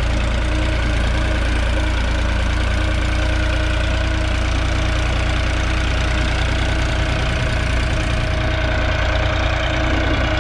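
New Holland 3630 TX Plus tractor's three-cylinder diesel engine running steadily under load while pulling a disc harrow through ploughed soil.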